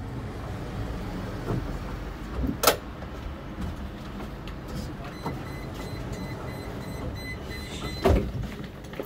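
Inside a standing tram: a steady low hum, a couple of knocks, then a high rapid beeping for about three seconds that ends in a loud clunk about eight seconds in, typical of the door warning and the doors shutting.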